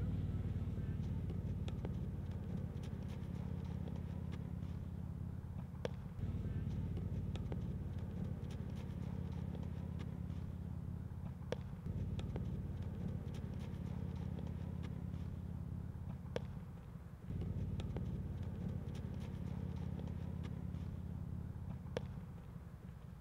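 Low wind rumble on an outdoor microphone, broken by a sharp crack every five to six seconds.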